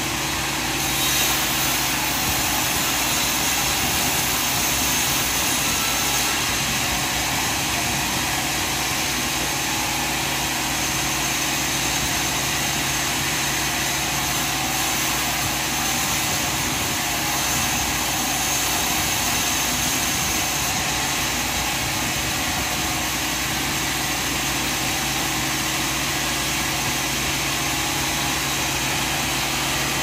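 Sawmill machine running with a steady, even engine drone.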